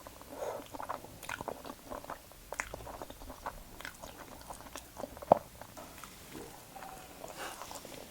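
A person chewing and biting food close to the microphone, with wet smacking and irregular clicks. One sharp, louder click comes about five seconds in.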